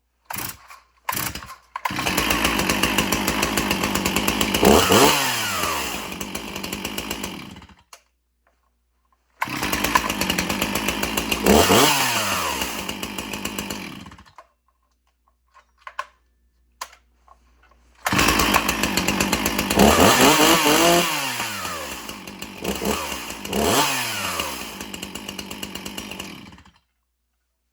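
Stihl two-stroke chainsaw pull-started and run three times. Each run idles, has its throttle blipped with the pitch gliding back down, and then is shut off.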